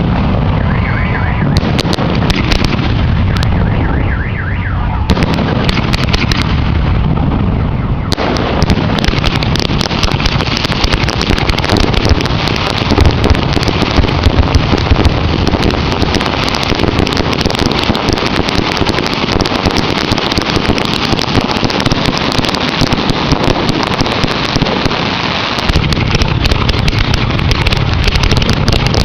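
Fireworks display: shells bursting and crackling in quick succession, becoming a continuous dense barrage about eight seconds in.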